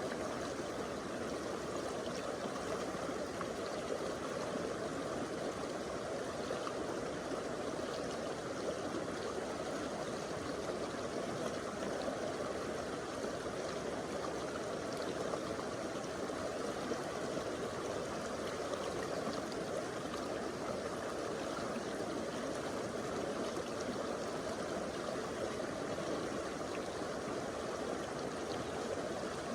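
A stream flowing over rocks: steady rushing and gurgling of water.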